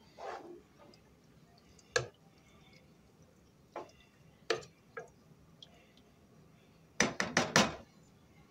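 A plastic spoon stirring a thick stew in a nonstick pot, knocking now and then against the pot's sides. Near the end it gives four quick, louder knocks, the spoon being tapped against the pot.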